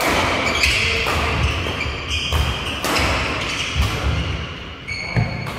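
Badminton doubles rally: rackets striking the shuttlecock several times, sneakers squeaking on the wooden court and feet thudding, echoing in a large hall.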